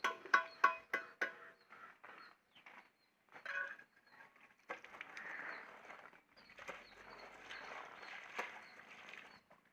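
Sharp metallic taps with a short ring, about three a second, stopping about a second in; then a few scattered knocks and, from about five seconds in, a longer rough rasping noise.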